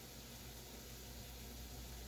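Faint steady hiss with a low hum and no distinct events: kitchen room tone.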